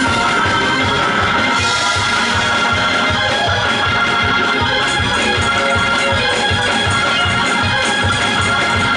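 Gospel church music led by an organ, over a steady beat.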